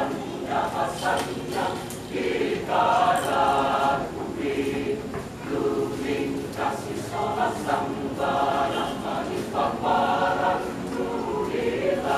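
Mixed choir of women and men singing in parts, in short rhythmic phrases with brief breaks between them.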